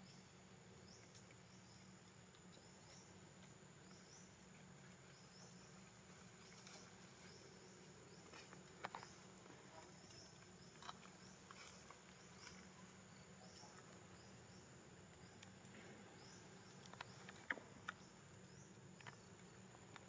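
Near silence: faint outdoor ambience with a steady high insect drone, broken by a few soft clicks and taps about halfway through and near the end.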